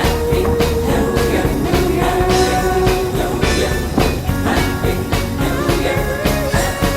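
Rock-style music with a sung melody over a steady, even beat.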